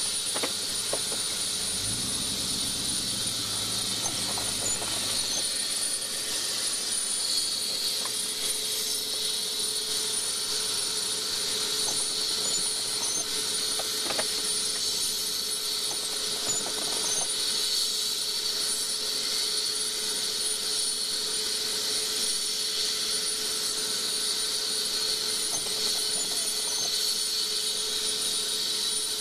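Medical helicopter's turbine engine running steadily: a constant rush with a high, steady whine, and a brief low rumble about two seconds in.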